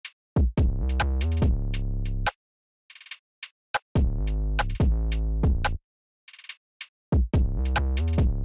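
Electronic music with a deep bass and drum-machine beat, playing in bursts of about two seconds that cut out abruptly into short silences.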